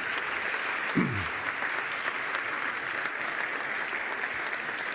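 A large audience applauding steadily, with one short falling glide in pitch about a second in.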